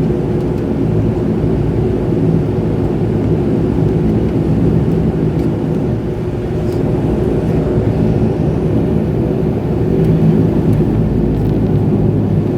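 Twin turboprop engines of a de Havilland Canada Dash 8-100 running steadily: a constant low drone with several held tones.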